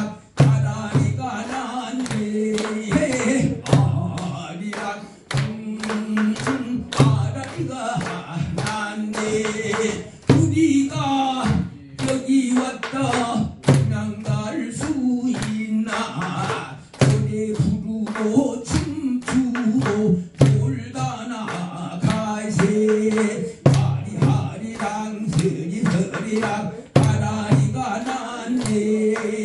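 A man singing a Korean folk song into a microphone, accompanied by regular strokes on a buk barrel drum.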